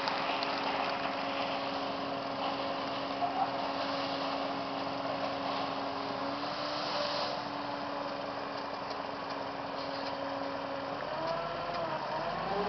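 Construction machine engine running steadily at idle, a constant hum, with its pitch starting to rise and fall near the end.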